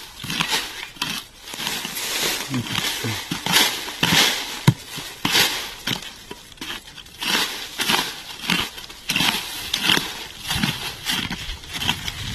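A hoe digging and scraping into soil and dry leaf litter, with a quick irregular series of crunching, crackling strokes.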